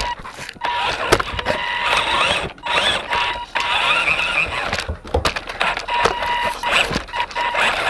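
Electric motor and gears of a 1/24-scale Redcat Racing SumoRC mini monster truck whirring and rattling in repeated bursts with brief stops, heard up close from a camera strapped to its roof; a steady whine comes and goes with the driving.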